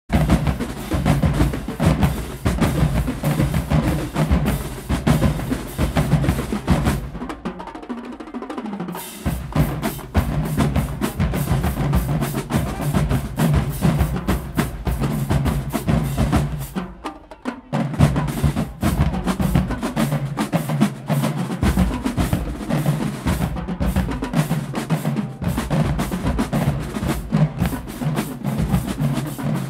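Marching band drumline playing a fast cadence: snare drums, tenor drums and bass drums in rapid strokes. It drops back briefly about eight seconds in and again around seventeen seconds in.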